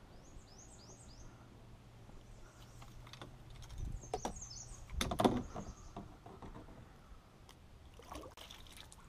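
Knocks and clatter from handling gear in a small paddle boat, loudest about five seconds in, with small birds chirping in short high notes near the start and again around the knocks.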